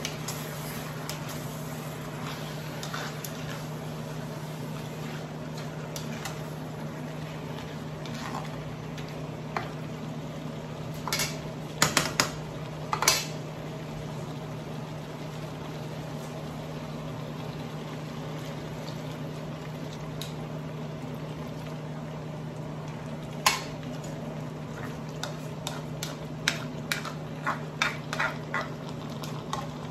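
Squid simmering in vinegar sauce in a wok, bubbling steadily over a low hum. A spoon stirs and knocks against the wok in a few quick clinks before the middle and in a run of them near the end.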